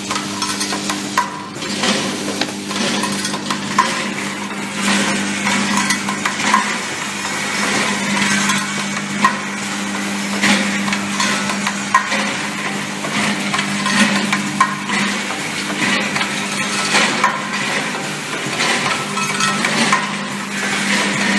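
Automatic hook attachment welding machine running: a steady hum under continuous metallic clatter and crackling, with a sharp click about every second and a quarter as it cycles.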